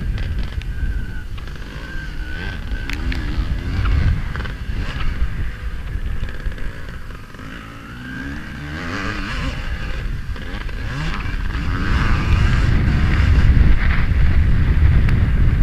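Vintage motocross bike's engine revving up and down as it is ridden hard round a dirt track, with heavy wind buffeting on a helmet-mounted microphone. The throttle eases off about halfway through, then the engine pulls louder toward the end.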